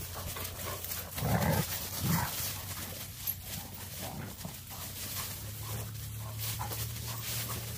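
Bulldogge puppies and shepherd dogs play-fighting: low dog growls, loudest about a second and a half and two seconds in, over the rustle and crunch of dry leaves under their feet.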